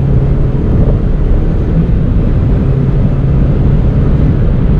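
Cabin sound of a Mini John Cooper Works GP2 on the move: its turbocharged four-cylinder engine holds a steady note under a constant road and tyre rumble.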